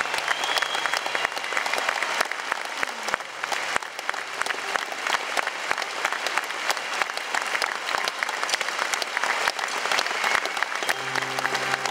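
Concert audience applauding, a dense steady clatter of many hands clapping. Music comes in near the end.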